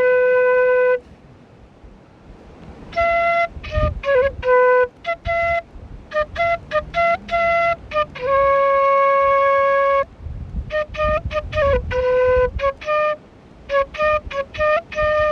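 Solo flute melody, phrases of quick short notes with a few long held notes, pausing briefly twice.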